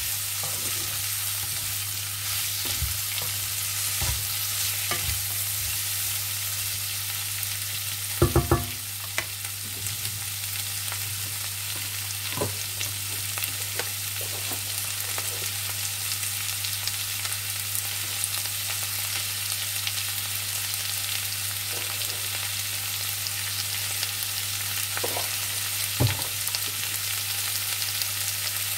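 Sliced cabbage, capsicum and carrot sizzling steadily in hot oil in a non-stick kadai, with a wooden spatula stirring and tapping in the first several seconds and a few sharp knocks against the pan about eight seconds in. One more knock near the end, over a steady low hum.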